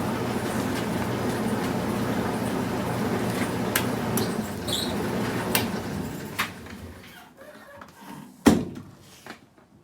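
Euhomy 850W portable clothes dryer running with a steady hum and a few sharp clicks, dying away about six to seven seconds in, followed by a single loud knock.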